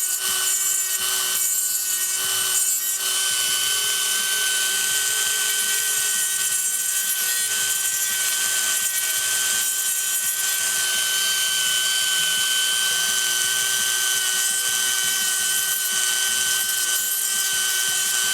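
Dremel rotary tool running at a steady whine, grinding on a die-cast toy car so its wheels will roll freely. There are rough grinding strokes in the first few seconds.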